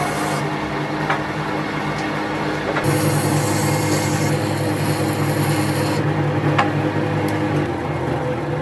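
An electric power tool running steadily while it works wood, its sound getting heavier about three seconds in as it bites harder.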